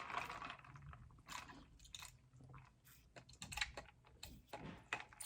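Spaghetti being chewed with the mouth close to the microphone, a faint, irregular run of soft mouth clicks and smacks.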